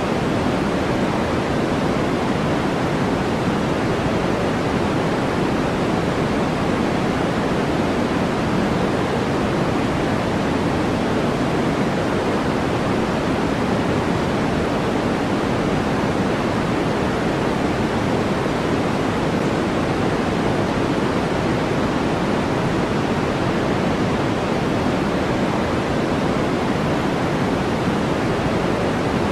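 Steady synthetic white noise: an even, unchanging hiss, fuller in the low and middle range than in the highs.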